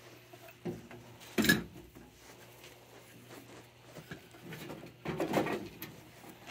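Knocks and scrapes of sheet metal as a furnace heat exchanger is worked loose inside its cabinet, still catching on something. A sharper knock comes about a second and a half in and a cluster of knocks about five seconds in, over a faint steady hum.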